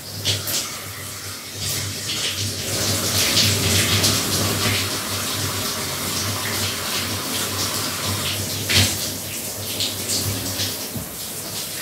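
Water running in a bathroom, growing louder a couple of seconds in as the flow opens up, over a steady low hum. One sharp knock near the end.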